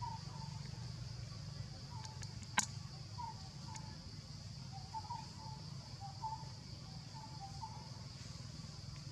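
Forest ambience: a steady high insect drone over a low hum, with short chirping calls every second or so and one sharp click about two and a half seconds in.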